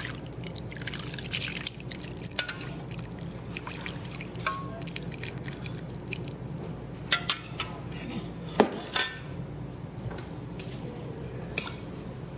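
Warm coconut milk and sugar mixture pouring in a thin stream from a pot into a glass bowl of rice-flour batter. A few sharp clinks come a little past halfway, the loudest about two-thirds through.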